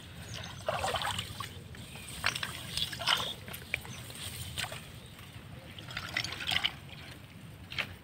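Hands working in shallow, weedy lake water: irregular small splashes and trickles of water, with grass stems rustling as they are handled.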